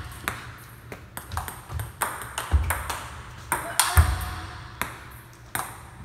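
Table-tennis rally of smashes: the celluloid-type ball clicking sharply off the rackets and table in an irregular series, the loudest hit about four seconds in. Low thumps of the player's footwork land under some of the hits.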